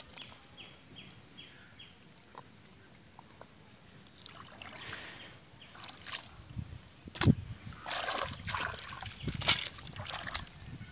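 Hands digging in wet mud and muddy water. It is fairly quiet at first; then, from about halfway, there is louder squelching and sloshing with one sharp wet slap, as a fish is pulled from its mud burrow.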